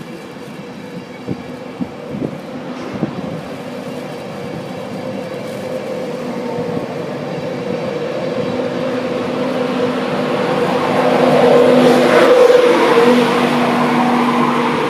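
A train approaching along the line through the station, its running sound growing steadily louder with a steady hum, loudest about twelve seconds in.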